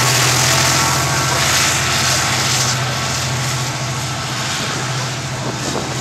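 A GT22 diesel-electric locomotive's EMD two-stroke V12 diesel engine running with a steady hum as it moves away, slowly getting quieter, over the rumble of freight wagons rolling past on the rails.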